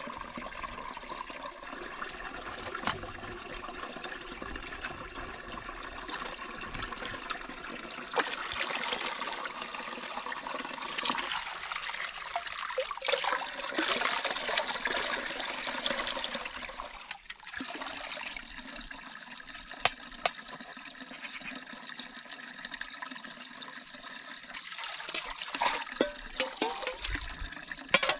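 Water pouring steadily from a pipe into a shallow pool, with hands splashing and swirling tomatoes in a metal bowl of water, the splashing loudest around the middle. A few light knocks near the end.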